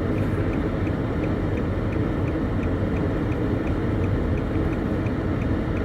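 Steady low rumble inside a car's cabin, the engine and road noise of the vehicle, with a faint high ticking about four times a second.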